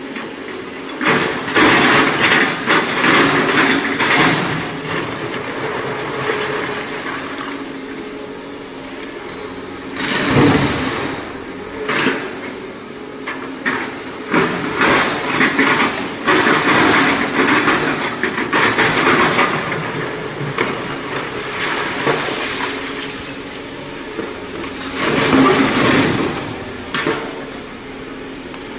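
Excavator diesel engine running under load while digging broken rock, with repeated loud, rough rushing and scraping surges.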